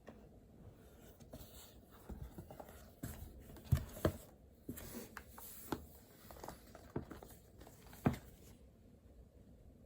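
Small desk sounds of studying: a pen writing and light knocks and taps on the desk, with a few louder knocks about four seconds in and again about eight seconds in.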